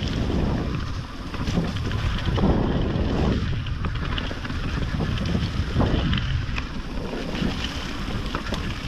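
Wind buffeting the microphone of a mountain bike's ride camera on a descent, over the rumble of tyres on rough wet trail, with scattered small rattles and knocks from the bike.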